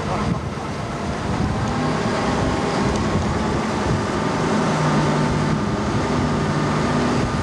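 Boat engine running with a steady low hum under an even wash of noise.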